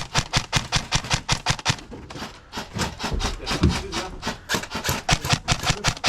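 Branches and brush rubbing and snapping against the player's gear as he pushes through dense undergrowth: a quick run of scraping, crackling strokes with a few short breaks.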